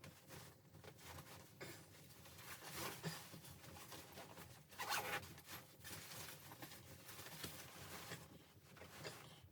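Faint rustling and scraping of things being handled, with scattered small clicks and one brief, louder rasp about five seconds in.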